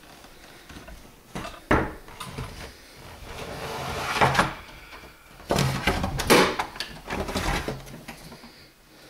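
Clicks, knocks and scrapes of a door being opened and handled: two sharp clicks about a second and a half in, a longer scrape that builds midway, then several louder knocks and scrapes.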